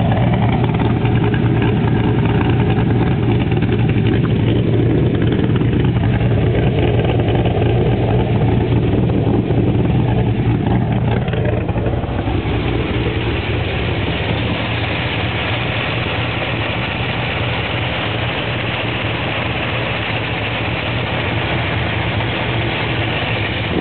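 2007 HSV R8 Clubsport's 6.0-litre V8, with a 233/233 camshaft, extractors and a full 3-inch exhaust, idling at the tailpipes. About halfway through it gives way to the car driving along, with steady wind and road rush over a quieter engine note.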